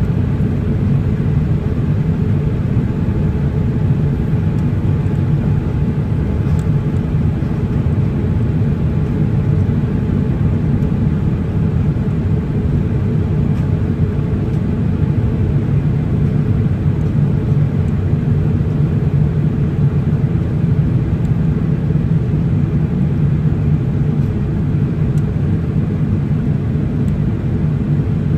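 Steady low drone inside the passenger cabin of a Boeing 787-8 Dreamliner in flight: engine and airflow noise.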